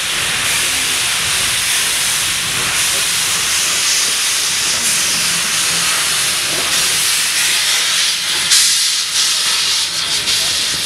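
Steam locomotive safety valves blowing off, a loud, steady hiss. A brief louder gush of steam comes about eight and a half seconds in, as steam jets from the front of LNER A4 Bittern's cylinders.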